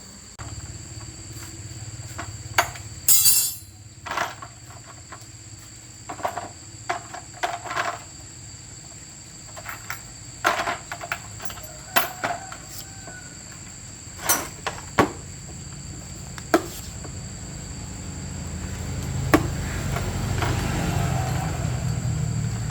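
Repaired electric rice winnowing fan running: a steady low motor hum that starts about half a second in and grows louder near the end, with scattered sharp knocks and clicks.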